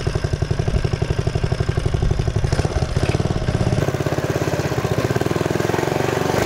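Small single-cylinder engine of a Dixon Terra mini bike running under way, with a fast, even train of firing pulses that climbs in pitch near the end as it picks up revs.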